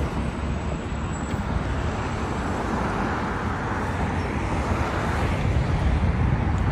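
Street traffic noise: a steady rumble of road traffic, swelling a little mid-way as a car passes.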